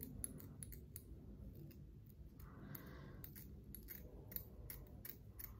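Scissors trimming a lace-front wig's lace along the hairline: a string of faint, irregular snips, a few a second.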